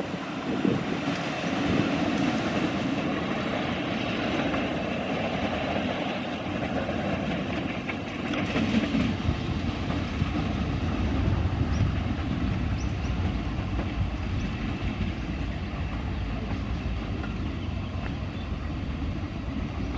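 A train running away along the track, a steady noise of its wheels on the rails that eases slightly toward the end.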